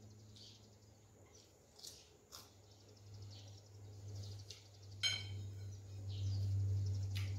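Close-up eating sounds: wet chewing and lip-smacking, with short squeaky mouth clicks repeating every half second or so and one sharp click about five seconds in. A low hum underneath grows louder in the second half.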